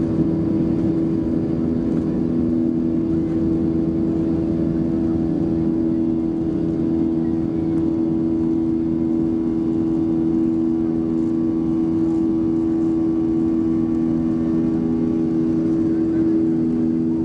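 Boeing 737-300's CFM56-3 turbofan engines at full takeoff thrust during the takeoff roll, heard inside the cabin: a steady drone with several held tones over a constant low rush.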